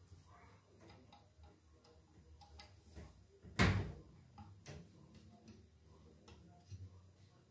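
Small scattered clicks and ticks of hands working speaker wire onto the terminals of a subwoofer driver, with one louder short knock a little past halfway.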